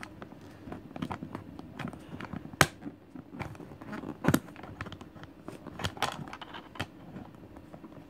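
Scattered clicks and knocks of small plastic toy pieces being handled, with sharper knocks about two and a half seconds in and again past four seconds.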